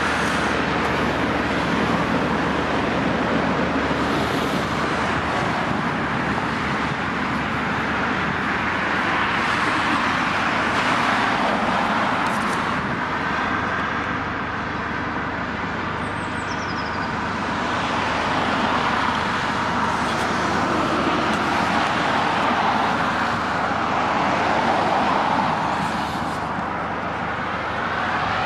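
Road traffic noise: a steady rush of passing vehicles that swells and fades several times, with a brief falling high whistle partway through.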